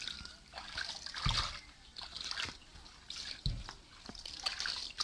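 Shallow water splashing and trickling, with a heavier splash and a low thud about every two seconds.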